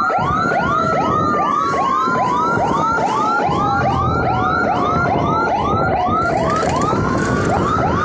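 Two emergency sirens sounding together: a fast yelp of about four quick pitch sweeps a second, overlaid by a slower wail that falls steadily in pitch for several seconds and jumps back up near the end, with a low rumble underneath.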